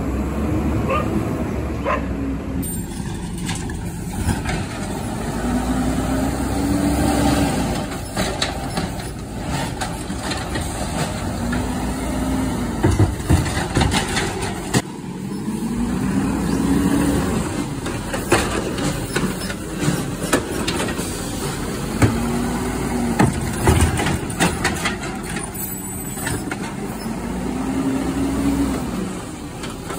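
Garbage truck engine revving up and dropping back about six times, a rev every four to five seconds, as it drives the hydraulic packer to compact trash. Sharp knocks come in between the revs.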